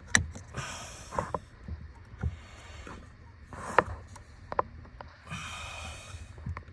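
Hands handling objects: scattered clicks and knocks, with two short rustling spells, one about half a second in and one about five seconds in.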